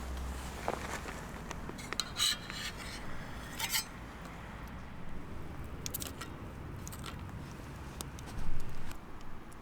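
Metal utensils scraping and clinking against a metal plate, with scattered short clicks; one louder scrape comes near the end.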